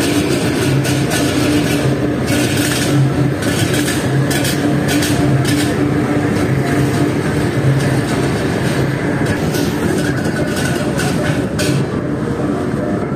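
Motorcycle engine running steadily with road and wind noise while riding in traffic.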